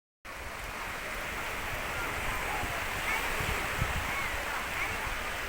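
Sea surf washing steadily onto the beach, with wind buffeting the microphone in low gusts.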